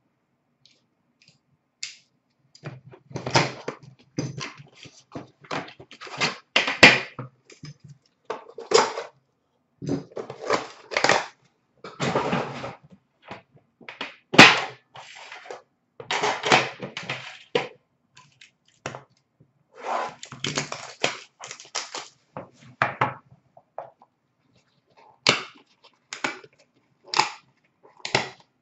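A metal Upper Deck The Cup hockey card tin being handled, its lid opened and its contents taken out: irregular rustling, scraping and knocks, with two sharp clicks about seven and fourteen seconds in.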